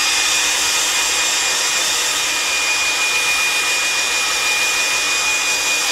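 Handheld hairdryer running steadily: a loud, even rush of air with a high, steady motor whine.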